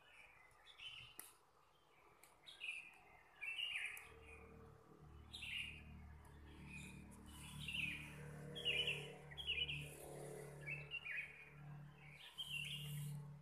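Small birds chirping in short, high calls repeated over and over. A low steady hum comes in about four seconds in.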